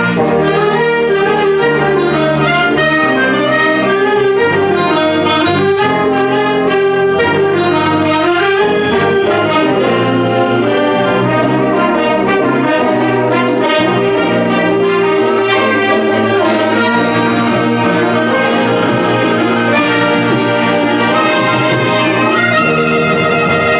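Concert wind band playing live at full strength, brass to the fore over woodwinds, in a dense, steady passage of sustained chords.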